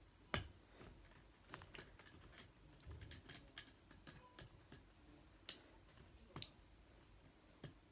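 Faint, scattered clicks and taps of small plastic parts and cable connectors being handled inside a disassembled TV, the sharpest click about a third of a second in.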